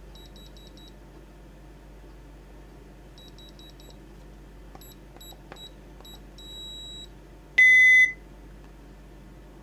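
Blaupunkt Q3200 alarm's wireless keypad beeping as its keys are pressed to arm the system: two quick runs of short high beeps, then a few single beeps and a slightly longer one, and near the end one loud, lower beep of about half a second.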